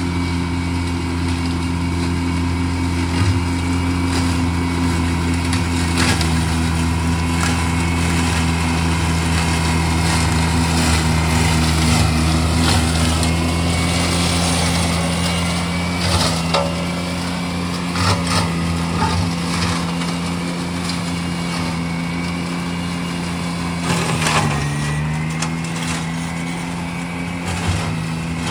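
Steiner 430 tractor's engine running steadily while driving its front flail mower through tall weeds and brush, with scattered sharp cracks and ticks as stems and sticks are chopped. About three-quarters of the way through, the engine note sags briefly under load, then comes back up.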